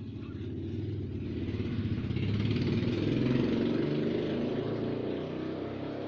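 A motor vehicle engine running steadily, growing louder toward the middle and then slowly fading.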